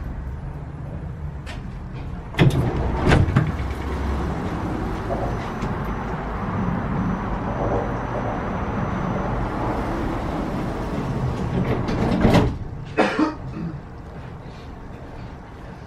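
Passenger doors of a Newag 14WE electric multiple unit opening with two loud knocks a couple of seconds in, then closing about twelve seconds in with a knock and a short rattle. Between them, steady background noise comes in through the open doorway, and it falls away once the doors shut.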